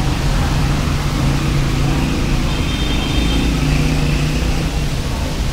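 A motor vehicle engine running close by, its low hum shifting in pitch a little, over a steady hiss of street noise.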